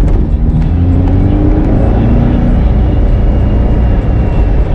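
1965 Volkswagen Beetle's 1776cc air-cooled flat-four, breathing through velocity stacks and an A1 exhaust, running hard while driving. Its pitch climbs over the first couple of seconds as it accelerates.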